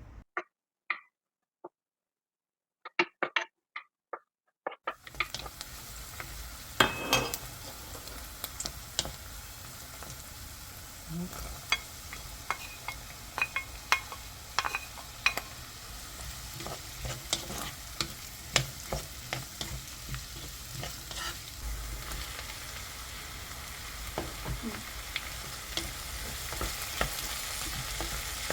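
Food sizzling steadily in a hot pan as bulgur pilaf is cooked, with frequent sharp clicks and scrapes of a utensil stirring against the pan. The first few seconds are near silent apart from a handful of clicks before the sizzling starts about five seconds in.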